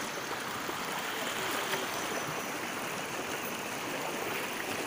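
Shallow stream running steadily over rocks and stones.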